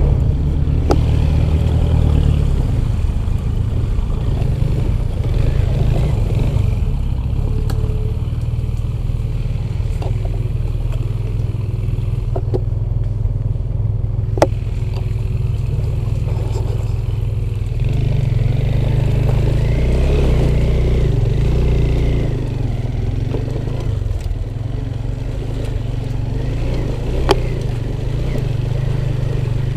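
Off-road motorcycle engine running at low revs, picking up for a few seconds past the middle, with two sharp clicks.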